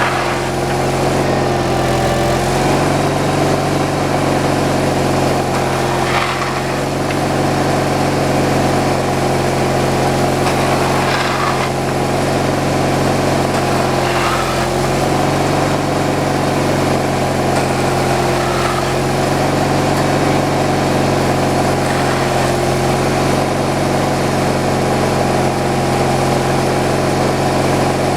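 Small engine running steadily at an unchanging speed, with a few faint knocks about six, eleven and fourteen seconds in.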